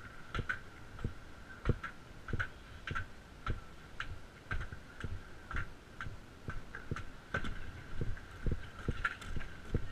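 Footsteps climbing wooden stairs and then walking onto the deck of a halfpipe ramp, a steady beat of about two steps a second.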